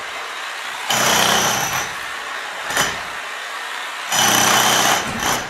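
Corded electric demolition hammer chiselling into a hollow-core concrete slab, running in two bursts of about a second each, one about a second in and one about four seconds in.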